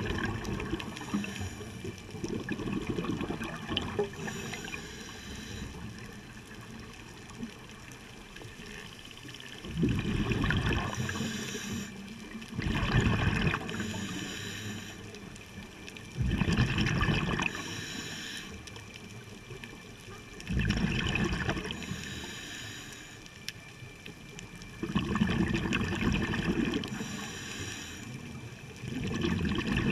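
Scuba regulator exhaust bubbles rumbling and gurgling past an underwater camera housing, one loud burst with each exhalation. After a quieter, crackly first third, the bursts come about every four seconds, each lasting about two seconds, with quieter gaps between breaths.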